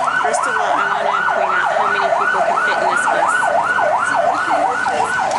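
Siren in a fast yelp, its pitch sweeping up and down about three times a second without a break.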